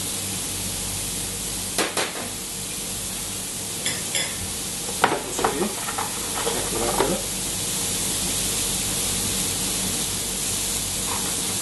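Sliced onion sizzling steadily in hot oil in a frying pan, the first stage of a pepper sauce. A few short knocks and clicks of a utensil against the pan come between about two and seven seconds in.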